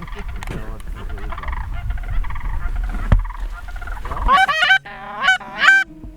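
Goose honking: quick overlapping honks and clucks over wind noise, then about four seconds in the wind drops away and three loud, sharply rising honks sound, with a low steady tone starting under them near the end.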